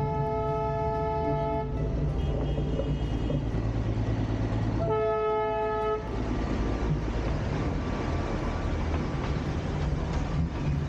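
Darjeeling Himalayan Railway toy train sounding its horn: one blast cuts off about two seconds in, a fainter short one follows, and another blast comes about five seconds in, over the steady low rumble of the train running.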